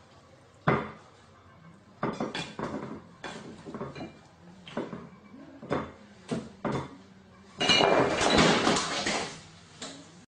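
Plates and cutlery clinking and knocking as a gull walks and pecks among dishes on a kitchen counter: a series of separate sharp knocks, then a louder, dense clatter about three quarters of the way through.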